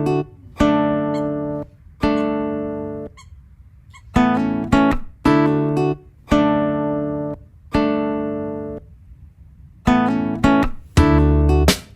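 Background music: strummed acoustic guitar chords, each left to ring and fade, with short pauses between them.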